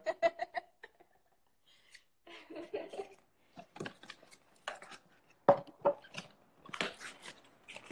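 Someone drinking from a beer bottle close to a phone's microphone: irregular gulps, lip and bottle clicks, with a few sharper clicks in the second half.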